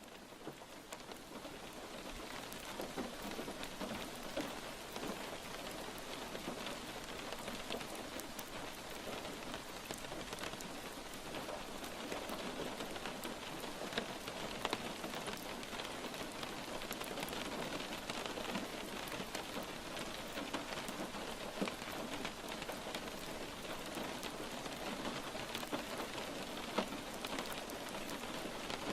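Steady rain falling, a dense hiss with scattered individual drop taps, fading in over the first couple of seconds.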